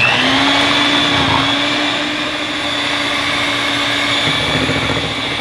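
Electric hand mixer spinning up with a rising whine, then running steadily as its beaters whir through chocolate cake batter in a glass bowl.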